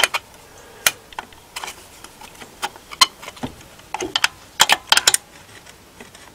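Irregular light metallic clicks and taps as a screwdriver tip and a magnet work against the inside of a Renault 4's Ducellier distributor, pushing a small retaining clip off its pin, with a quick run of clicks about four to five seconds in.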